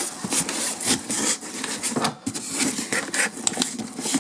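Cardboard shipping box and its protective packing layers being handled: a run of short scraping and rubbing strokes.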